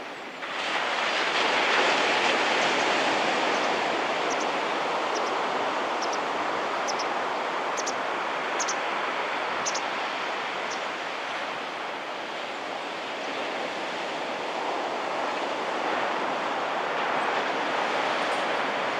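Surf breaking on a sandy beach, a steady wash of small waves in a shore break that swells up about half a second in and slowly rises and falls. A series of faint, short high ticks comes in the middle.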